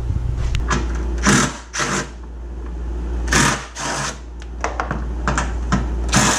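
A hand-held power tool run in four short bursts, with scattered clicks between them, over a steady low hum.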